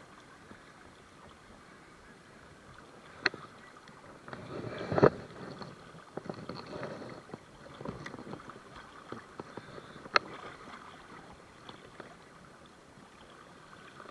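Water sloshing and splashing, with two sharp clicks about seven seconds apart and a louder rush of noise about five seconds in.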